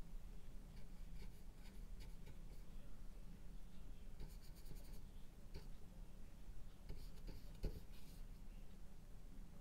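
Bristle brush strokes of oil paint on a small textured painting panel: faint scratchy strokes in short runs, over a low steady hum.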